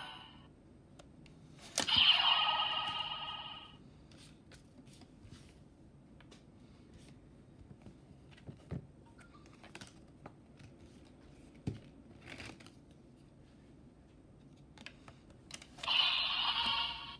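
DX Chemy Riser toy playing an electronic sound effect for about two seconds, starting with a click about two seconds in. Then small plastic clicks and card handling as a card is pulled from the slot and a new one pushed in, and near the end the toy starts playing its electronic sound again.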